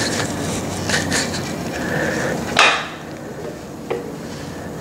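Aircraft propeller being turned slowly by hand to bring number one cylinder to top dead center, with light knocks and handling noise. A short, loud rush of air comes a little past halfway, then quieter clicks.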